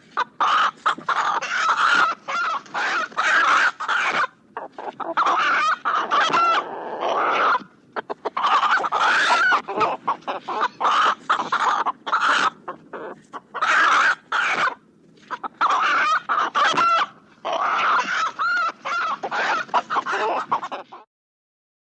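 Chickens and roosters clucking and cackling in quick runs of short calls, with crowing among them. The calls stop shortly before the end.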